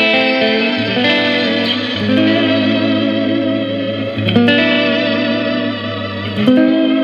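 Electric guitar playing sustained chords through an EarthQuaker Devices Astral Destiny octave reverb pedal, each chord ringing on in a long reverb wash. New chords are struck about a second in, at two seconds, past four seconds and near the end.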